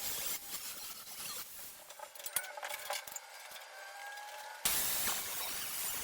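Angle grinder with a cutoff wheel cutting steel hoop tubing: a gritty, hissing grind. It turns thinner for a while in the middle, with a faint whine, then jumps back louder about four and a half seconds in.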